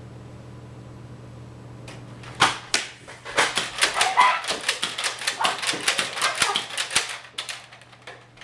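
A steady low hum, then from about two seconds in a fast, irregular run of sharp clicks and knocks lasting about five seconds that stops near the end.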